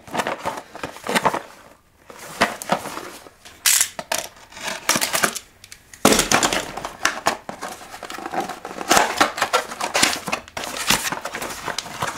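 Small cardboard firecracker box being handled and its end flap pried open: irregular scraping, rustling and clicking of cardboard, with brief pauses about two seconds in and again near the middle.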